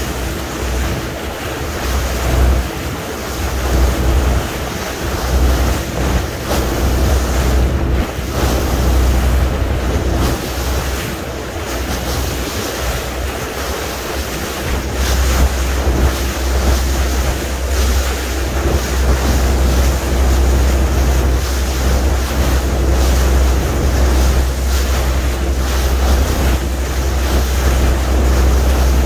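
Wind buffeting the microphone on a boat under way, with water rushing and splashing along the hull and a steady engine hum underneath. The wind rumble grows stronger about halfway through.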